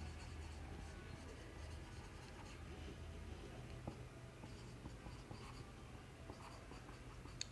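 Marker pen writing on a whiteboard: faint strokes and small taps as a line of notes is written, with a sharper tap near the end.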